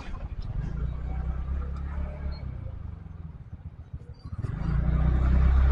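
A vehicle engine running with a low hum. It eases off about three to four seconds in, then grows louder near the end as it picks up again.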